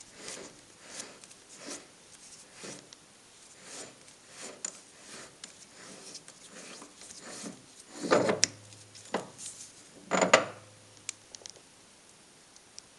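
Metal lathe back plate being unscrewed by hand from the threaded spindle nose of a Weiler capstan lathe, turn after turn, with a soft rub of the threads and hand on the metal about every half second. It ends with two louder knocks, about eight and ten seconds in, as the plate comes off.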